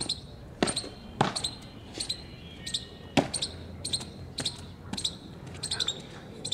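Marching boots striking a paved parade ground: a series of sharp stamps, the loudest about half a second, a second and three seconds in, with lighter steps after. Short high chirps come and go throughout.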